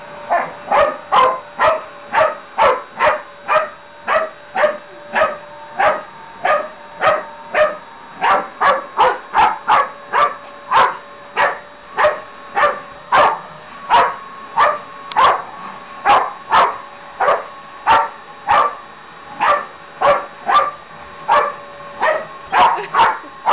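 Staffordshire bull terrier barking over and over, about two barks a second, at a running vacuum cleaner. The vacuum's steady hum is faint beneath the barks.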